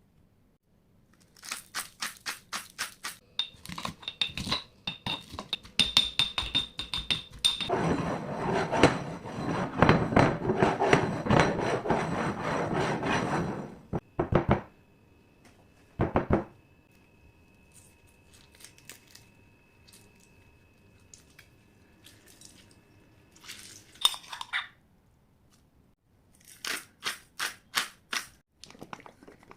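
Kitchen food-preparation sounds: runs of quick taps and knocks, then several seconds of dense scraping and mixing noise, then a few separate knocks and a faint steady tone, and more quick taps near the end.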